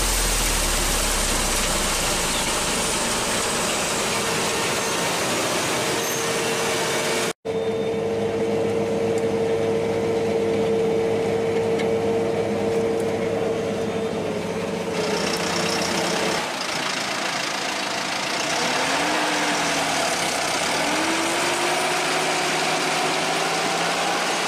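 Farm machinery running in a few clips joined by abrupt cuts. First a New Holland TC5.80 combine harvester at work, then a steady engine drone heard from inside a machine cab with a high whine held over it. Near the end the engine pitch rises twice.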